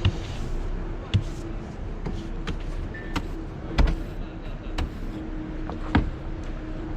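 Snow being swept off a vehicle with a brush, with several sharp knocks spread through it, over a steady hum.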